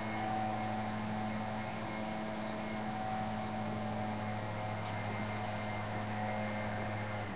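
A steady machine-like hum, several constant low tones over an even hiss, that drops away suddenly near the end.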